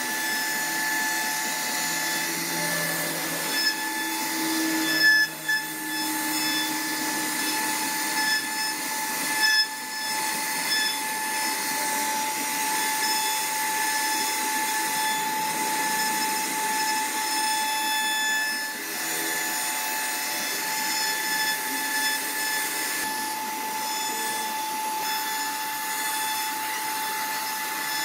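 CNC router spindle running with a steady high whine while its bit cuts wood, with a few brief louder knocks in the first ten seconds.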